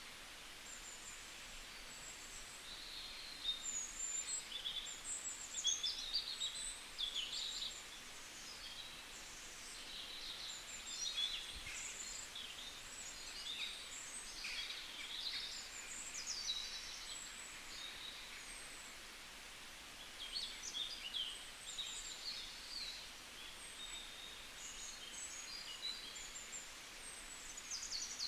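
Small birds chirping: many short, high, quick calls overlapping each other, over a faint steady hiss.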